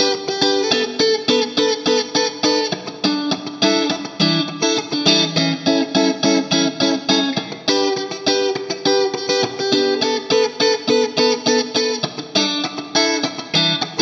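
PRS Silver Sky electric guitar played through a Marshall Silver Jubilee amp and 4x12 cabinet, picking a steady rhythmic chord pattern of about four strokes a second.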